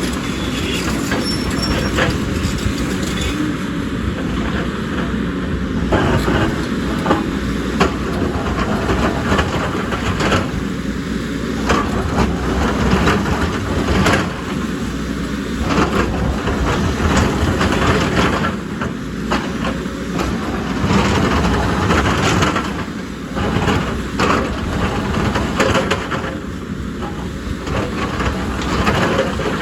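JCB excavator at work, its diesel engine running steadily under load, with continual rattling and frequent knocks of the machine digging and clearing rock and soil.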